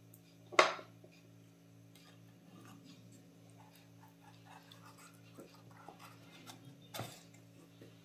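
Serving utensils knocking and scraping against the clay cooking pot: one sharp knock about half a second in, a softer one near the end, and faint clicks between, over a low steady hum.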